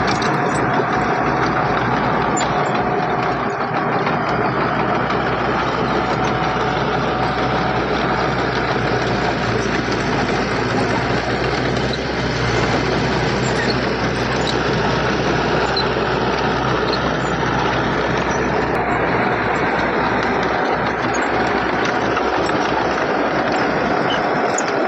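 Heavy diesel earthmoving machinery running steadily, a dense engine sound that holds level throughout.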